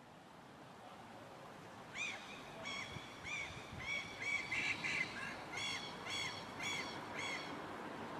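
A gull calling repeatedly: about a dozen short, arched calls, roughly two a second, starting about two seconds in, over a steady background hiss.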